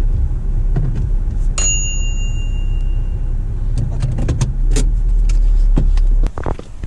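Small farm vehicle's engine running with a steady low rumble, then cutting off near the end. A single high tone sounds about a second and a half in, and there are scattered clicks and knocks in the later seconds.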